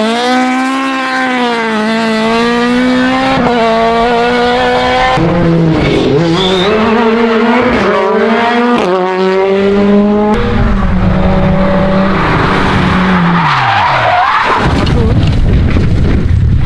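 Rally car engine at high revs, the pitch climbing and dropping sharply with each of several gear changes, then the revs falling away near the end, followed by a rush of wind-like noise.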